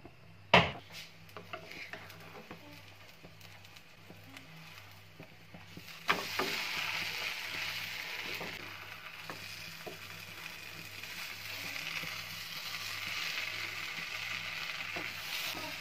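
A sharp click about half a second in, then a knock about six seconds in and a steady sizzle as a filled crepe fries in a nonstick pan while it is turned with a plastic spatula to cook the other side.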